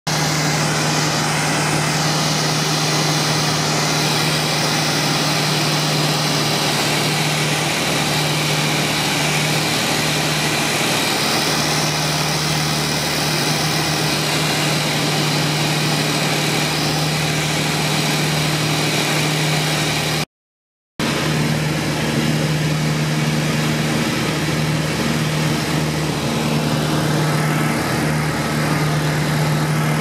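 Light aircraft's piston engine and propeller droning steadily, heard from inside the cabin, with a constant low hum under a wash of noise. The sound cuts out completely for under a second about two-thirds of the way through, then resumes unchanged.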